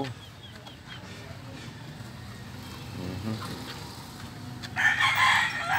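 A rooster starts crowing near the end, loud and harsh, over a low steady background.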